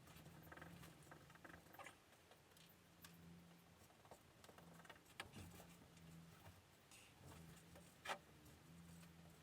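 Near silence with faint scratching and light ticks, two sharper clicks about five and eight seconds in, over a faint on-and-off low hum: small hand-working sounds at the console being filled with epoxy putty.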